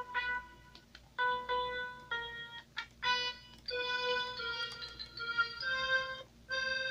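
Roland Boutique D-05 synthesizer playing preset patches: a bugle-like patch in short separate notes, then from about three seconds in a patch called Air Castle in longer, fuller notes and chords with bright overtones.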